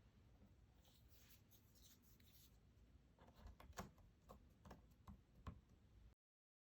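Cardboard jigsaw puzzle pieces being handled close up: a soft scratchy rustle of pieces sliding, then a run of light taps and clicks as pieces are set down and pressed into place, stopping abruptly near the end.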